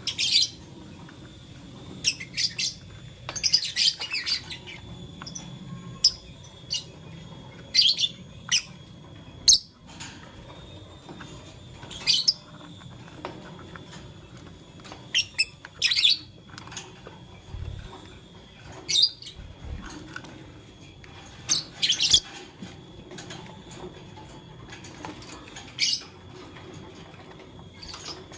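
Lovebirds chirping: short, sharp, high-pitched chirps, singly or in quick clusters, every second or two.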